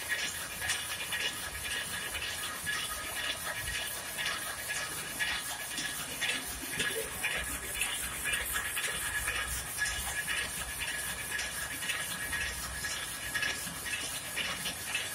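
Rapier loom with a jacquard head running, a fast steady clatter of quick repeated mechanical strokes over a constant high hum.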